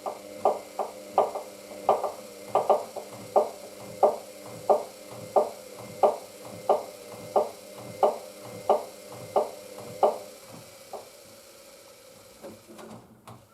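Hoover DYN9144D3X washing machine drum turning slowly during a load-balancing attempt before the spin, with a regular knock about three times every two seconds that stops about ten seconds in. The machine is retrying its balancing again and again.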